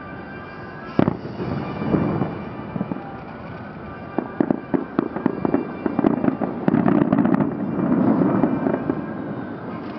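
Fireworks bursting: one sharp bang about a second in, then a rapid series of bangs and crackles from about four to seven and a half seconds, with music playing underneath.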